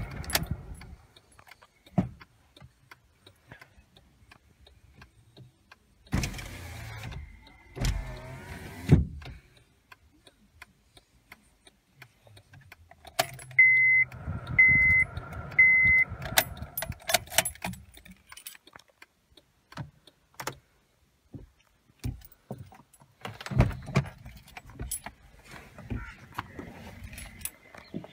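Inside a Honda Civic with its engine switched off: scattered clicks and rustling, then three short electronic beeps about a second apart from the car's dashboard chime, followed by more clicks, knocks and shuffling.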